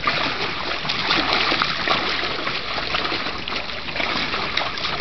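A bulldog wading and splashing in a shallow plastic kiddie pool: a continuous run of small water splashes.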